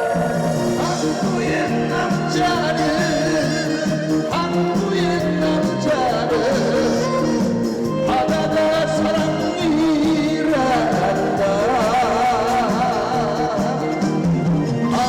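Live trot music played loud over festival speakers: a full band backing with a wavering melody line carried with heavy vibrato.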